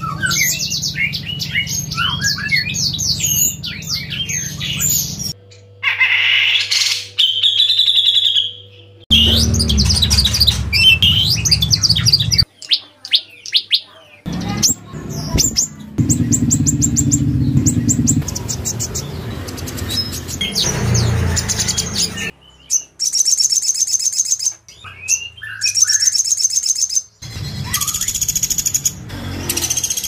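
Caged songbirds singing in a run of short clips, each cut off abruptly after a few seconds: chirps, fast high trills and warbled phrases, with a low hum under several of the clips.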